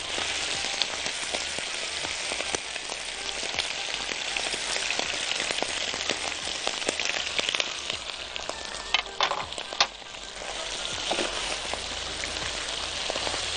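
Pieces of Egyptian baladi sausage sizzling and crackling in hot oil in a wok. The loud, steady sizzle is the sign that the pan is hot enough to sear the sausage rather than let it release its water and stew.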